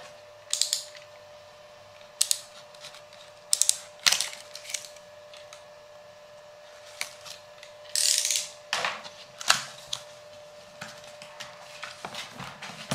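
Cardboard product box being handled and opened: scattered clicks, taps and scrapes of cardboard, with a longer scraping rustle about eight seconds in as the box is worked open. A faint steady hum runs underneath.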